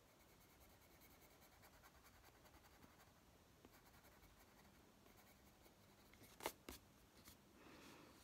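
Faint scratching of a Prismacolor coloured pencil on the paper of a colouring book as grey is worked in with light strokes. Two short sharp clicks about six and a half seconds in.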